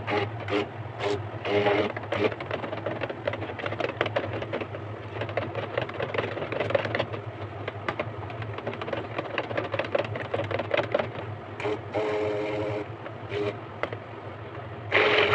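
Electric stick blender running steadily, its head churning through thick soap batter made from used cooking oil in a plastic basin.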